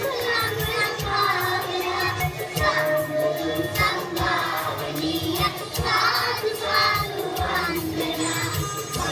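Children's choir singing a Sinhala Buddhist devotional song (bakthi geetha) in unison, with a low instrumental accompaniment under the voices.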